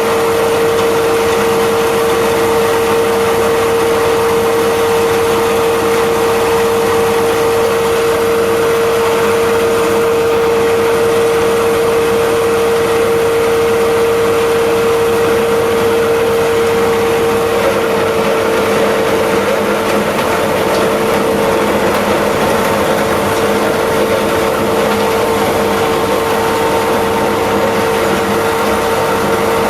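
Corn cob crusher machine running steadily, a loud mechanical hum with a strong steady tone over grinding noise. A little past halfway the hum turns rougher.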